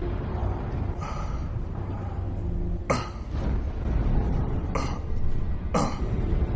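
A wounded man's pained gasps and groans, four short ones a second or two apart, some falling in pitch, over a low steady drone.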